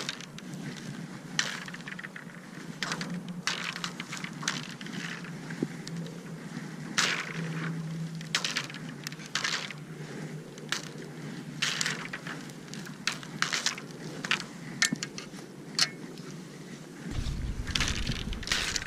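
Scattered irregular clicks, scrapes and crackles, close to the microphone, from handling or moving on the ice. About two seconds before the end, wind starts to rumble on the microphone.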